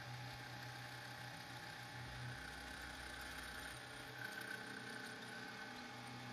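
Milling machine running steadily with a 1/4-inch carbide end mill taking a light final pass through the seat for the iron in a cast brass plane body: a faint, even machine hum.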